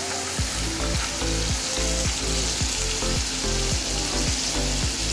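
Chapli kababs sizzling steadily as they shallow-fry in oil on a tawa griddle. A low rhythmic beat with held tones comes in underneath about half a second in.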